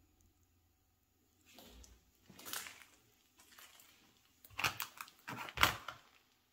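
Crunching and crackling sounds: a few soft ones at first, then a louder cluster of sharp crunches near the end.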